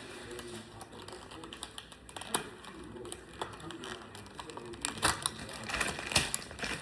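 Irregular clicks and crackles of stiff plastic packaging being handled and pried as a diecast car is worked out of its plastic holder, busier and louder in the last couple of seconds.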